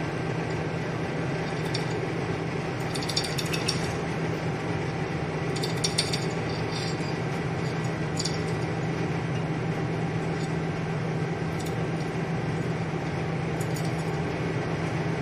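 Steady fan hum, with scattered light clicks and rattles from a metal inoculation loop working wheat grain inside a glass bottle during spawn inoculation.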